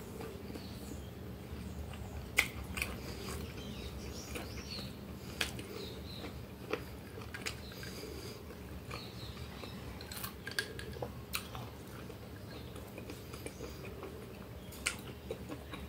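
Close-up eating sounds: wet chewing and mouth noises with scattered sharp clicks, the loudest about two seconds in. In the second half come sips and swallows from a glass.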